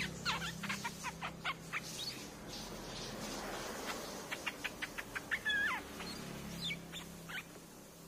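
Streak-eared bulbul calling: a loose run of sharp, quickly falling notes, then about halfway through a faster series of short notes ending in a louder, more complex note, over a faint low hum.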